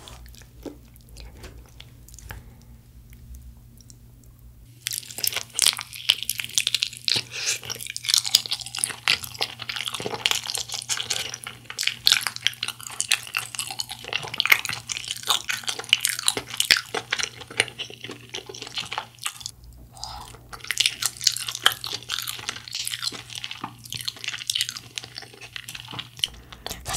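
Close-miked biting and chewing of BHC Bombastic sauce-glazed fried chicken: a dense run of quick crackly mouth clicks and light crunches. It starts about five seconds in and stops briefly around two-thirds of the way through.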